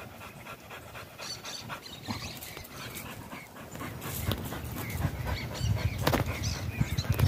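A dog panting, with dry brush rustling and twigs crackling as the camera moves through the scrub.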